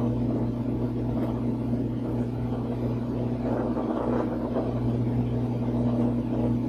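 WEN 4208 8-inch bench drill press running steadily, its 1/3 hp induction motor humming with a low, even drone. Vibration from the running machine is carried into the wooden workbench beneath it and adds to the noise, which the owner puts down to the light base sitting straight on the bench without a rubber mat.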